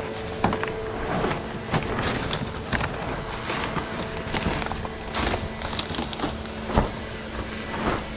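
Dry branches, twigs and leaves crackling and snapping irregularly as a brush pile on a plastic tarp is handled and pressed down, with the tarp rustling and a faint steady hum beneath.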